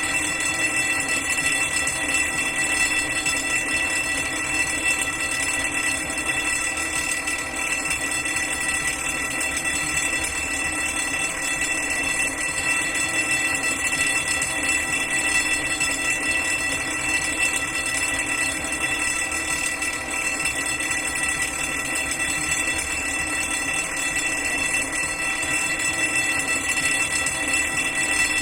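Electric fire alarm bell ringing without a break: a steady, loud, high-pitched ring that does not change.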